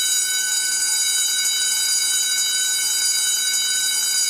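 A long, continuous censor bleep: one steady high-pitched tone with several overtones, held without a break, bleeping out a stretch of shouted speech.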